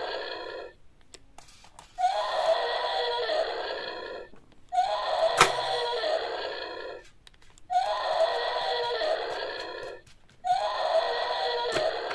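The same pitched sound effect, about two and a half seconds long, repeated four times at even spacing, with a sharp click twice.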